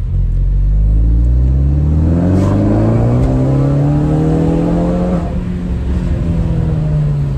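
Ford Focus ST engine accelerating, heard inside the cabin: the engine note rises steadily for about five seconds, then holds and eases slightly before dropping away at the end.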